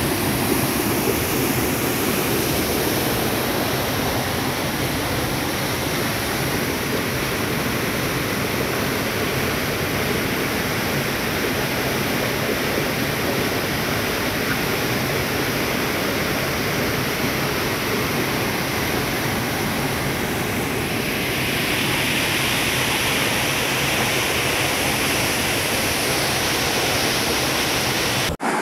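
Steady rush of turbulent water pouring down a concrete spillway channel below an earth dam's flow-regulating outlet. It cuts off sharply just before the end.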